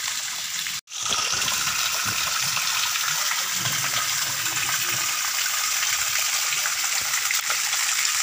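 Small waterfall splashing down a rock face in a steady rush of water. The sound cuts out for an instant about a second in.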